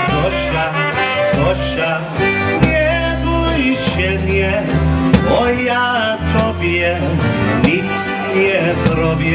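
Live polka band playing, with a concertina, bass guitar and drum kit.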